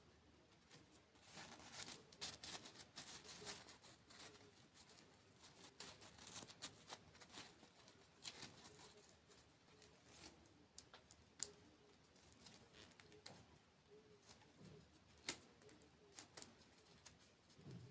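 Close-miked eating sounds of sweets being chewed: soft, irregular clicks and crackles, a few sharper than the rest, with no talking.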